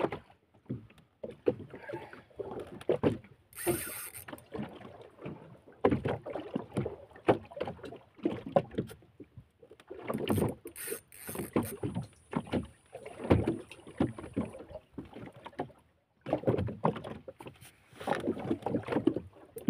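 Small fishing boat knocking and rustling in irregular bursts while an angler works a big tuna on rod and reel.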